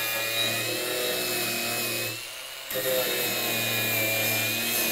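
POPOMAN 20V brushless cordless angle grinder with a grinding wheel grinding a piece of metal: a steady high motor whine over gritty grinding noise. It goes briefly quieter a little past halfway, then picks up again.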